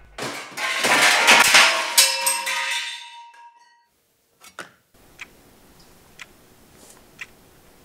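Metal loft-bed frame tubes crashing down and clattering, a jumble of metallic impacts with a ringing tone that dies away over about three seconds. After a short pause, a clock ticking faintly about once a second.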